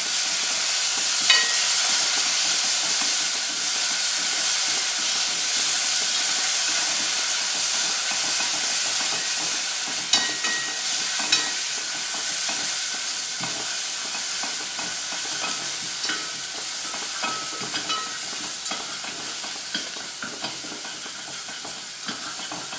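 Ground onion-tomato masala paste sizzling in oil in a nonstick pot as it is stirred and scraped with a spatula, with a few light clicks of the spatula against the pot. The sizzle slowly dies down.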